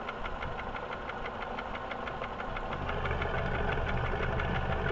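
First-generation Hyundai Accent engine, converted to a carburettor, running with a rapid, even knock, hammering away. The owner suspects a valve, although the hydraulic lifters are new. About three seconds in, the engine's low running sound grows louder.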